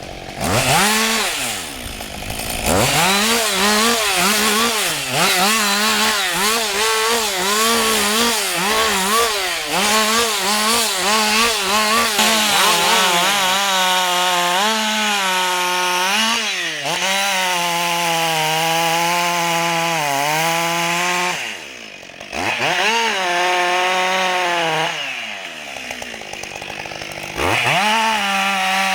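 Husqvarna 560 XP two-stroke chainsaw run at high revs, its pitch dipping again and again under load as it cuts wood, then held steady. It drops back twice near the end and revs up again each time.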